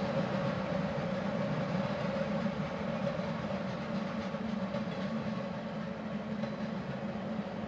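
A steady low rumble with a hum in it, slowly fading.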